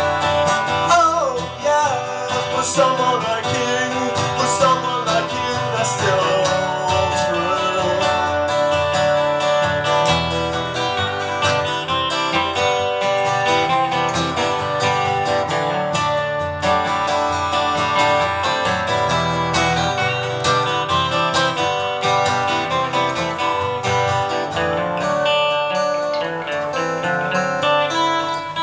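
Two guitars playing live, one strumming chords on an acoustic guitar and the other picking along, in the instrumental outro of an indie pop song with no singing.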